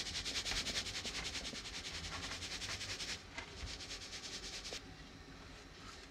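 Mullet being scaled: a scraper dragged quickly over the fish's skin makes a rapid, even rasping that stops near the end.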